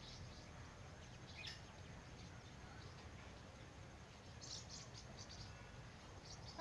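Near silence: a faint low outdoor rumble with a few faint bird chirps, one about a second and a half in and a quick run of high chirps around four and a half seconds in.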